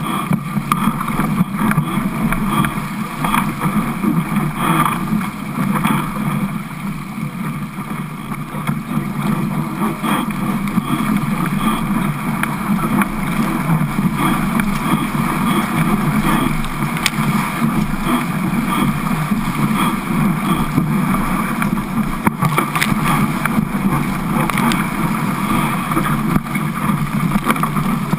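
Water rushing past the hull of a Fireball sailing dinghy planing through chop, mixed with wind on the microphone: a continuous rush that surges and dips as the boat hits the waves, with spray splashing over the deck.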